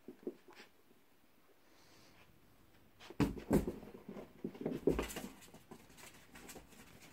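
A cat and a ferret wrestling on a carpeted floor: a flurry of soft thumps and scuffles, starting about three seconds in and lasting two to three seconds.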